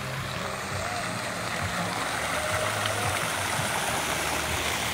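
Park fountain's jets spraying and splashing into a stone basin, a steady rushing hiss that grows louder as it is approached.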